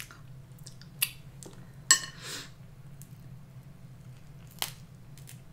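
Crab leg shells snapped and cracked apart by hand: three sharp cracks, the loudest about two seconds in and followed by a soft crunch, over a low steady hum.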